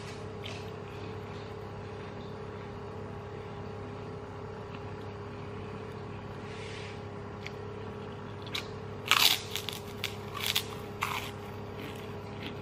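Close-up eating sounds: chewing, with a cluster of short crisp crunches about nine to eleven seconds in, over a steady low hum.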